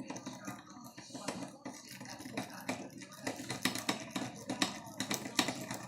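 Rake lockpick jiggled in a Schlage Everest lock cylinder under a thin tension wrench: quiet, irregular metallic clicking and scratching as the pick works the security pins to set them.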